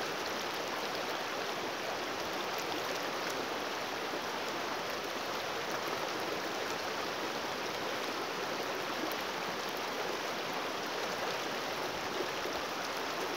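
River water flowing, a steady even rushing hiss.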